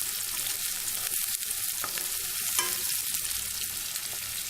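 Finely chopped small onions (shallots) frying in hot oil in a kadai with mustard seeds, cumin and curry leaves, sizzling steadily with fine crackling.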